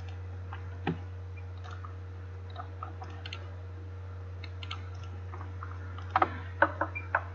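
Computer mouse and keyboard clicks, scattered and light, with a quick run of four or five louder clicks about six seconds in, over a steady low hum.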